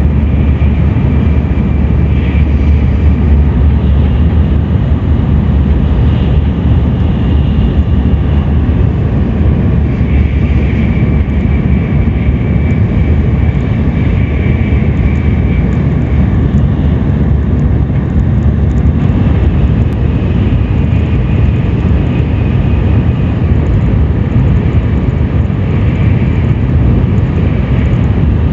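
Steady running noise of a Tokaido Shinkansen Kodama train at speed: a dense low rumble with a faint high whine that comes and goes.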